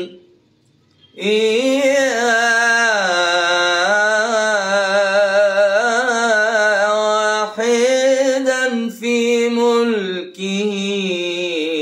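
A man singing a religious ibtihal unaccompanied, drawing out a long vowel in wavering, ornamented melismatic turns. The voice comes in about a second in, after a breath, and takes two short breaths later on.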